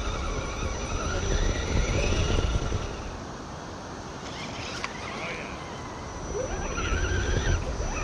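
Electric motor of a radio-controlled off-road truck whining, rising and falling in pitch as it is throttled on and off, over a steady low rumble.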